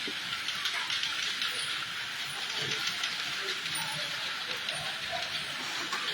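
Computer keyboard keys clattering in very fast one-handed typing: a dense, unbroken stream of small key clicks.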